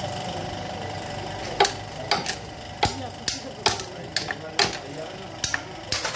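Hand tools clicking and knocking on engine parts during engine disassembly. A steady hum fills the first second and a half, then come irregular sharp knocks and clicks, about one or two a second.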